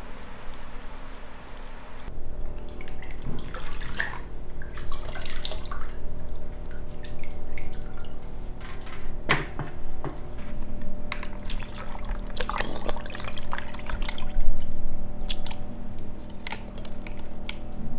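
Water dripping and splashing back into a plastic bucket as a skinned nutria carcass is lifted out of its soaking liquid, in irregular drips and splashes starting about two seconds in.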